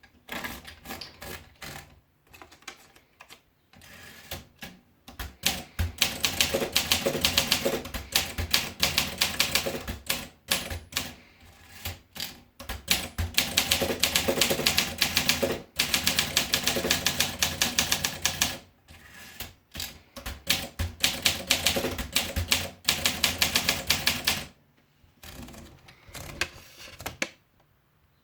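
Olympia SM2 portable manual typewriter being typed on: a few scattered key strikes, then long runs of fast, even keystrokes with short breaks, and a few last clicks before it stops.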